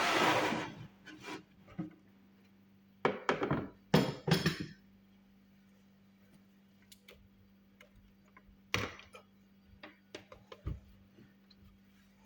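Handling clatter: a short rattle, then a cluster of knocks and clinks about three to four seconds in, another knock near nine seconds, and a few faint clicks and a low thump toward the end.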